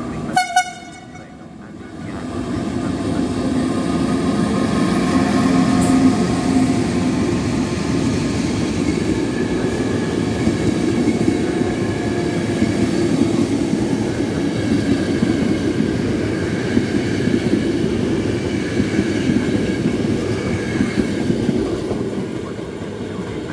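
Italian FS E656 electric locomotive sounds a short horn blast, then its train of Gran Confort coaches passes close by at speed. The wheels on the rails make a steady loud rumble for about twenty seconds, easing off near the end.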